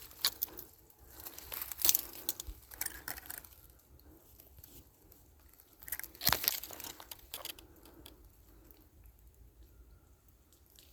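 Crunching and crackling rustle in dry leaves or brush. It comes in two bursts, one between about one and three and a half seconds in and another from about six to seven and a half seconds in, then it quietens.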